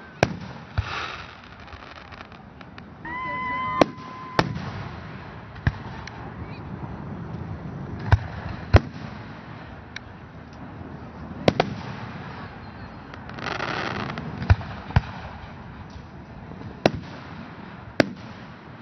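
Fireworks display: aerial shells bursting in about a dozen sharp, irregularly spaced bangs, some under a second apart. A short steady tone sounds for about a second, about three seconds in.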